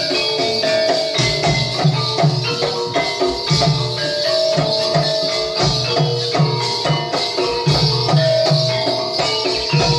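Javanese folk dance accompaniment: a drum beating a quick, steady pattern under a repeating melody, with a constant high rattle of shaken percussion.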